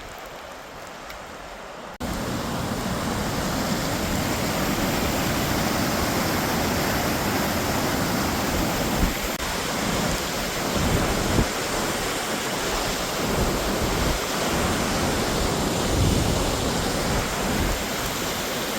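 Steady roar of a large waterfall's rushing water, mixed with wind buffeting the microphone. It comes in suddenly and much louder about two seconds in, after a quieter hiss.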